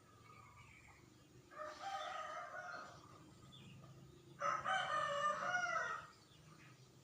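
Two long pitched animal calls, each over a second long, the second one louder.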